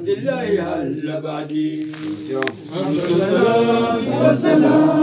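Men's voices chanting a menzuma, the Ethiopian Islamic devotional chant sung for the Mawlid, with several voices held together in long melodic lines. A single short sharp knock about halfway through.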